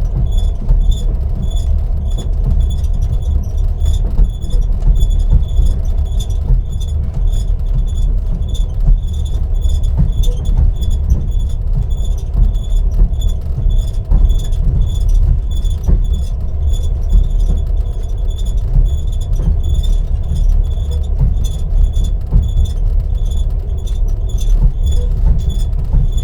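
Ceiling panels of a moving Russian passenger railway carriage creaking, a short high squeak repeating over and over in a steady rhythm, over the continuous low rumble of the train running on the rails.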